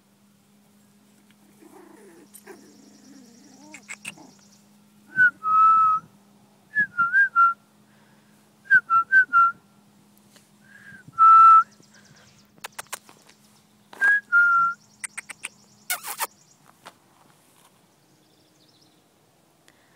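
A person whistling short, clear notes in quick runs of two to four, with one longer, louder note about eleven seconds in. A few sharp clicks come near the end, over a faint steady hum that stops shortly before the end.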